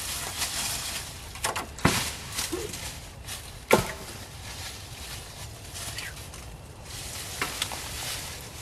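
Cut tree limbs and brush being dragged and tossed aside over a leaf-covered trail, with rustling and a few sharp knocks and cracks as the branches land, the loudest about four seconds in.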